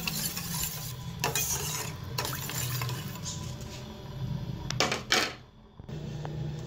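Metal spoon stirring undissolved sugar grains and water in a metal pan, scraping and clinking against the bottom and sides in irregular strokes over a steady low hum. The sugar is being dissolved on medium flame to make a syrup.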